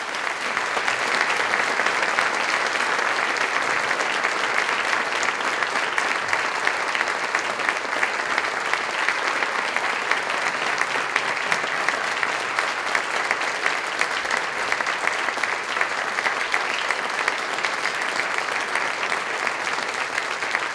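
Audience applauding steadily: dense, even clapping from a roomful of people.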